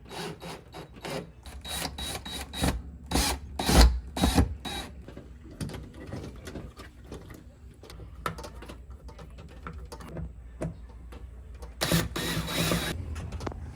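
Metal clicks and rattles of a door lock being worked by hand, with a key and the latch clacking, a louder knock about four seconds in and a brief louder burst of mechanism noise near the end.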